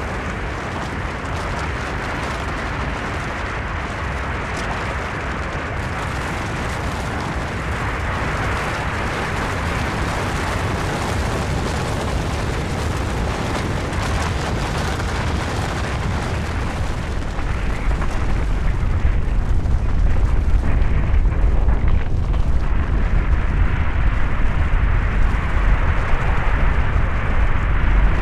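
Avalanche: a continuous rushing rumble with a deep low end. It grows louder and heavier about two-thirds of the way through.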